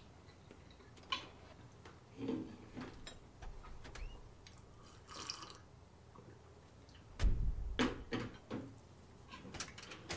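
Sparse light clinks and taps of cutlery on a plate and cup as a man eats breakfast, with a few louder dull thuds about seven to eight seconds in.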